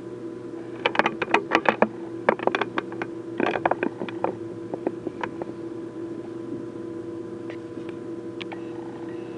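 A run of sharp clicks and light knocks, several a second, over a steady hum. The clicks come thick from about a second in and thin out after about five seconds.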